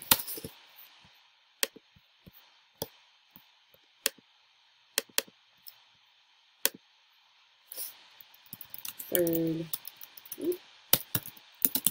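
Computer keyboard and mouse clicks: single clicks spaced a second or so apart for the first several seconds, then a quick run of keystrokes near the end as a comment is typed. A short murmur of a woman's voice comes about nine seconds in.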